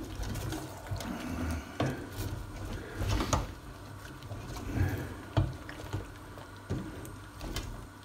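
A wooden spoon stirring chicken pieces in stock and onions in a stainless steel pot, scraping the bottom, with short knocks of the spoon against the pot every second or so.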